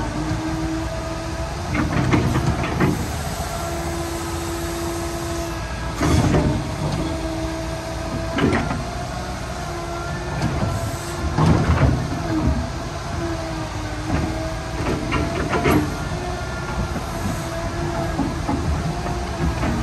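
Liebherr 936 excavator running: a steady diesel engine with a whine that comes and goes, and sharp metal clanks and knocks every few seconds as the machine works.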